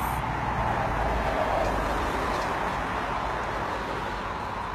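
Road traffic noise, a steady rush that swells as a vehicle passes about a second and a half in, then slowly fades.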